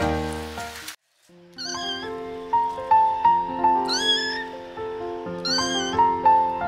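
A young kitten meowing three times, high thin meows that rise and fall, over background music that drops out briefly about a second in.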